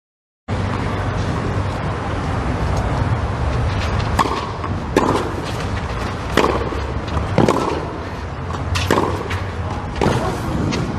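Tennis rally on a clay court: a series of sharp racket strikes on the ball, about six in all, coming every second to second and a half. A steady hum runs underneath.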